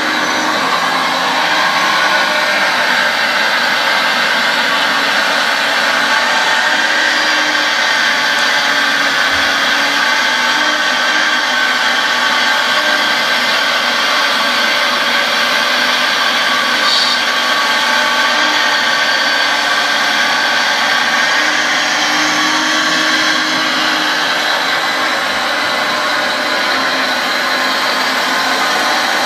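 Hydraulic pump and motor of a radio-controlled scale Liebherr R 960 excavator running continuously with a steady whine while the excavator digs.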